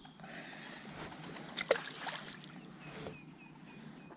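A small roach dropped from the hand back into the pond: one sharp splash about one and a half seconds in, amid softer water and handling noise.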